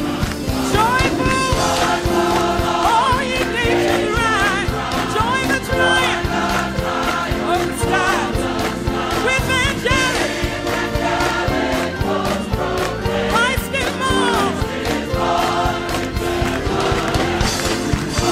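Background music: a choir singing over a musical accompaniment.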